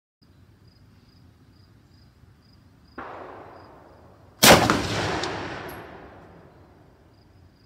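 Rifle fire at an outdoor range: a quieter shot about three seconds in, then a loud close shot from a Mondragón Model 1908 semi-automatic rifle in 7×57mm Mauser about a second and a half later, echoing for about two seconds, with a couple of small clicks and a brief metallic ting after it. Faint insects chirp in a steady pulse underneath.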